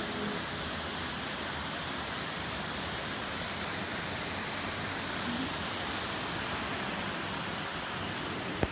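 Steady, even rushing of a mountain stream's water over rocks.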